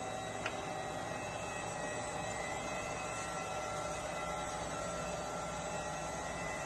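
Jones & Shipman 1077 universal cylindrical grinder running with its grinding wheel spinning: a steady hum with a few held tones over a hiss. The spindle runs with no extra noise, a sign that it is in good order. A short tick about half a second in.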